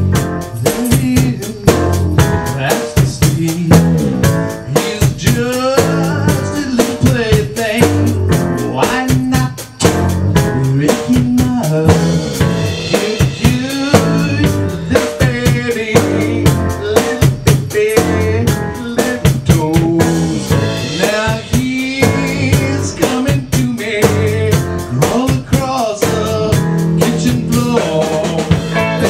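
Live rock band playing: a drum kit keeping a steady snare-and-bass-drum beat under electric bass, guitar and keyboard.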